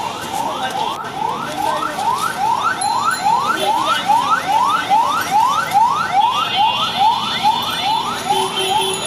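Electronic siren yelping: a quick rising wail repeated about two and a half times a second, keeping on without a break.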